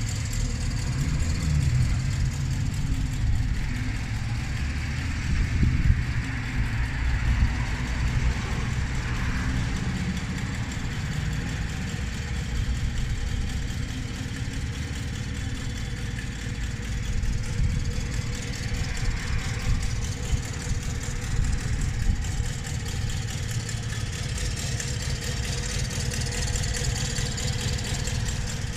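Motobecane Mobylette's 50cc single-cylinder two-stroke engine idling steadily, with a fast, even pulsing.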